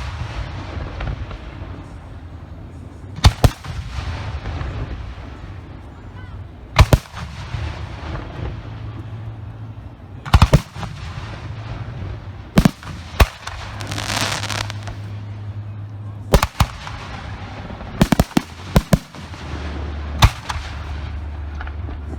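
Professional 1.3G aerial firework shells bursting overhead. There are about ten sharp bangs a few seconds apart, some in quick pairs and a tight cluster near the end. Hissing crackle fills the gaps, strongest for a stretch around the middle.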